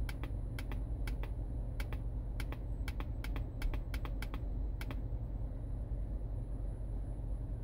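Laptop keys clicking, about three presses a second, irregular, stopping about five seconds in. A steady low rumble runs underneath.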